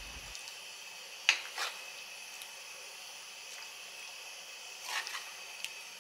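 Thick chickpea curry dropped from a metal ladle into a ceramic bowl: a few soft wet splats, two close together about a second in and another near five seconds.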